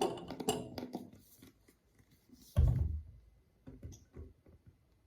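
Handling noises on a tabletop: a clutter of small knocks and rustles, one loud dull thump about two and a half seconds in, then a few light taps.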